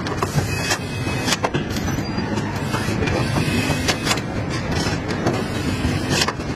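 Car body-shop assembly line noise: a steady mechanical din with irregular sharp metallic clicks and knocks.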